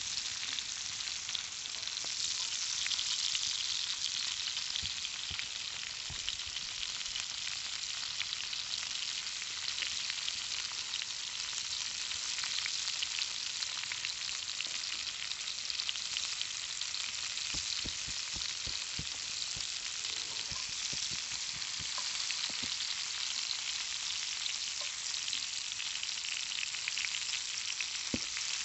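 Conecuh smoked sausage links frying in a cast iron skillet: a steady sizzle with many small crackling pops.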